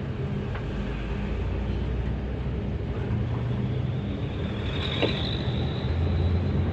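Intercity bus's diesel engine running on the road, a steady low rumble whose note drops and grows slightly louder about six seconds in. A thin high whine sounds over it for the last two seconds or so.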